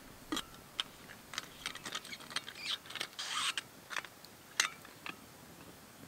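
Irregular sharp clicks and light knocks of things being handled by hand, with a short scraping rustle about three seconds in.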